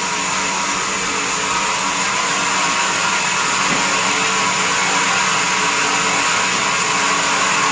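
Band sawmill machinery running steadily: a continuous, even whirring hiss, with no cut heard.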